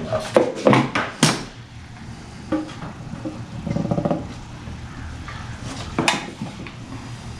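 Several sharp metallic clanks and knocks, with a short fast rattle about halfway through and another knock near the end: a homemade paint-can smoke tester and its hose fittings being handled.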